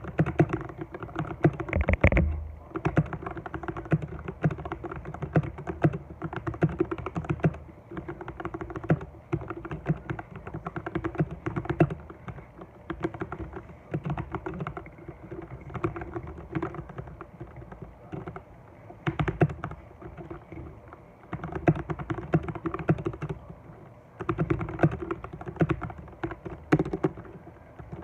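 Continuous typing on a mechanical keyboard with lubed Outemu Brown tactile switches, a dense run of soft, muffled keystroke clacks with a louder burst about two seconds in.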